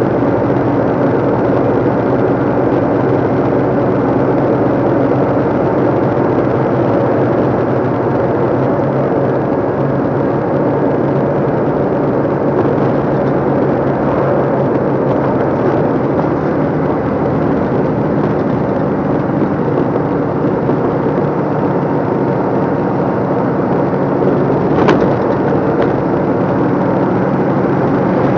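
Diesel engine of a 2014 DAF LF55 220 lorry running steadily under way, heard from inside the cab with road noise, and a single sharp click about 25 seconds in.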